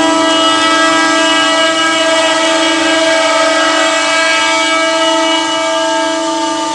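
CNC stone engraving machine's spindle running steadily while carving white stone: a loud, constant whine over a grinding hiss.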